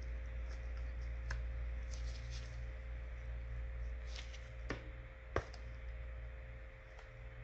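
A few sharp, separate clicks and taps of small repair tools handling an iPhone during disassembly, over a steady low hum.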